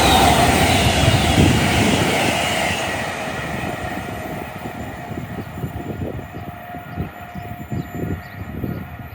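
A passing train on the main line, loud at first and fading steadily as it recedes. A steady tone and a run of irregular low knocks stand out as it dies away.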